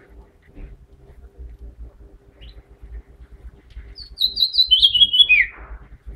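House finch singing one short warbling phrase about four seconds in, its notes stepping down in pitch over about a second and a half.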